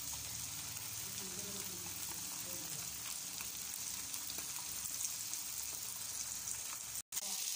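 Masala-coated mackerel shallow-frying in hot oil in a kadai: a steady sizzle of spitting oil. It cuts out for an instant near the end.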